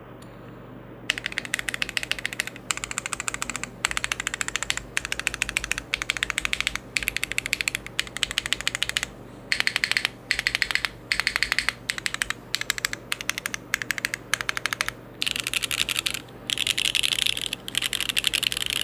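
Fast typing on a gasket-mounted Neo65 Core+ mechanical keyboard with lubed Gateron Oil King linear switches, a carbon fibre plate and no foam. Rapid keystroke clicks come in bursts of about a second with short pauses between them, starting about a second in.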